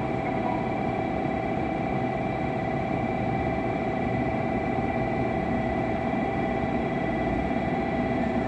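A steady tone held at one pitch, with a slight beat and a fainter higher line above it, that starts abruptly and cuts off after about eight and a half seconds, over a low rumble.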